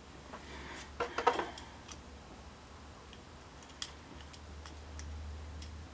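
Small clicks and scrapes of a Tech Deck fingerboard's truck, wheel and bolt being handled by fingers. A short cluster comes about a second in, then a few sparse light ticks.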